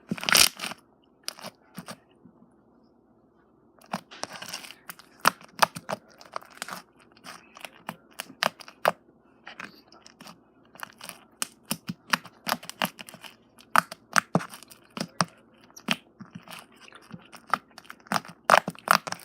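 Slime being squeezed, stretched and folded by hand, giving irregular sticky crackles and small pops, with a short pause about two seconds in.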